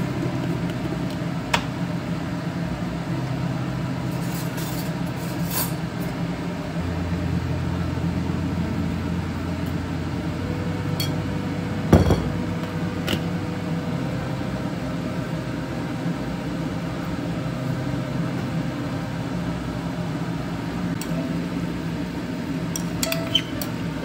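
Occasional clinks and knocks of a glass jar and metal spoon and fork against a ceramic bowl, with one louder knock about halfway, over a steady low hum.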